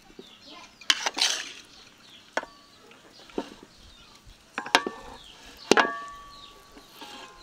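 Kitchen utensils knocking and clattering: a handful of sharp strikes at uneven intervals, the later ones leaving a short metallic ring.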